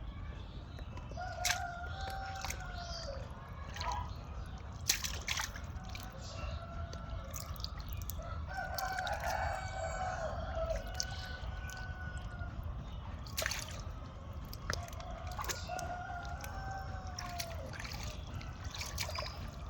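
Rooster crowing three times, each crow about two seconds long, with scattered sharp clicks over a steady low rumble.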